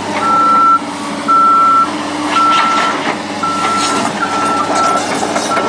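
Backup alarm of a construction vehicle beeping while it reverses, one steady tone about once a second, over the steady drone of its diesel engine.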